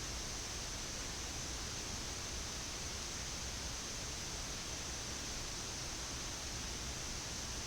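Steady, even hiss of flight-deck air-conditioning airflow in a Boeing 787-10 cockpit.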